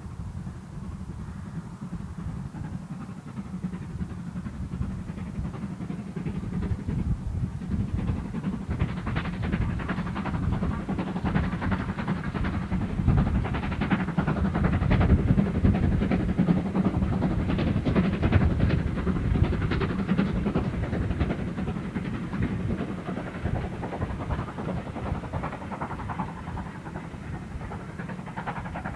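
A steam tank locomotive working a goods train past: its exhaust beats and the rattle of the wagons grow louder to a peak about halfway through, then fade away.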